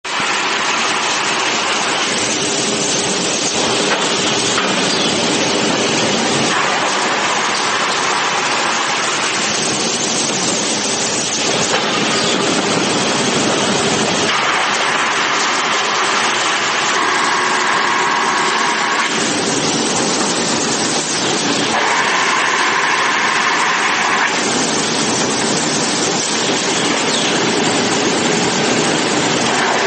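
Automatic double-sided, two-head plywood calibrating sander running in a steady, loud industrial din, with its conveyor feeding panels through. The noise shifts in tone every few seconds.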